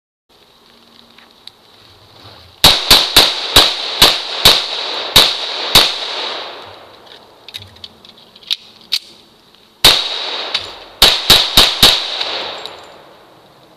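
Gunfire in a rapid-fire drill: a quick string of about nine shots, a pause with a few faint clicks of a reload, then a single shot followed by a fast string of four shots.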